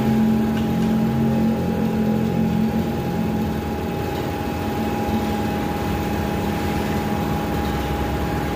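Workshop air compressor running steadily: a constant low hum with a steady whine above it.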